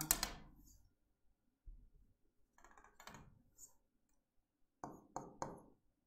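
Faint taps and clicks of a stylus on an interactive display board, with three quick taps shortly before the end; otherwise nearly quiet.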